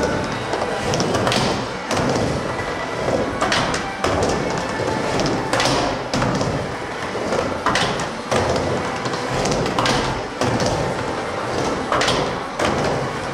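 Skateboard rolling back and forth on a wooden mini ramp, the wheels rumbling steadily, with a thud every second or two as the board and trucks hit the ramp surface and coping.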